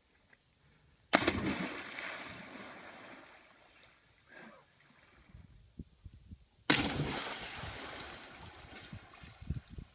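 A person jumping from a sandstone ledge into a river, twice: each plunge hits the water with a sudden loud splash, followed by a wash of falling water that fades over a couple of seconds. The splashes come about five and a half seconds apart.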